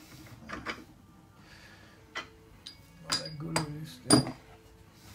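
Metal clinks and knocks from tools or parts being handled on a small milling machine's table and vise, a few separate strikes with a short metallic ring, the loudest about four seconds in.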